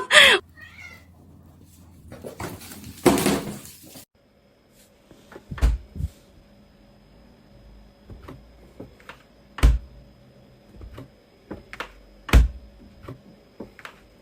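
A cat meowing, with a short loud burst of noise about three seconds in, followed by scattered sharp knocks and thumps over a faint steady hum.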